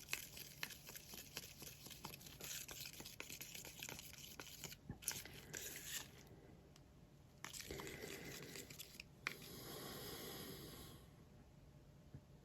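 Faint scraping and clicking of acrylic paint being stirred in a plastic cup after a little water has been added to thin it, with a short pause about halfway and dying down near the end.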